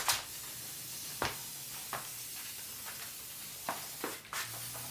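A steady hiss with six or so short, light clicks and taps scattered through it.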